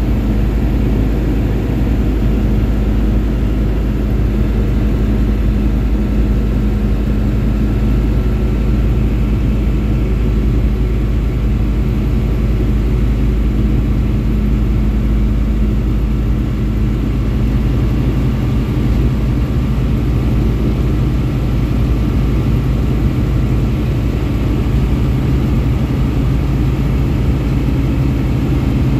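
Tecnam P2002's Rotax 912 engine and propeller droning steadily, heard inside the small cockpit. The tone shifts slightly about five seconds before the end.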